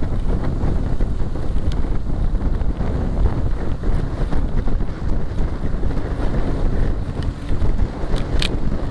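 Wind buffeting the microphone of a camera riding on a moving bicycle: a loud, steady low rumble, with one short sharp click near the end.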